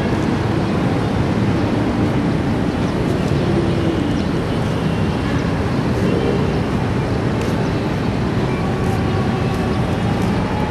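Steady outdoor background noise, a constant low rumble with hiss above it, with no distinct events.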